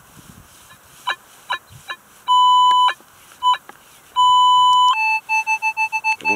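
Minelab CTX 3030 metal detector giving target tones as the coil sweeps: a few short chirps, two held high tones of about half a second each, then a quick run of short beeps near the end. The high tones signal coins lying right on top of the ground.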